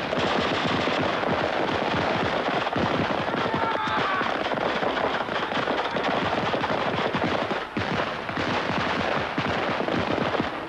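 Sustained automatic small-arms fire, a dense rapid run of overlapping shots with no real break, easing briefly near eight seconds.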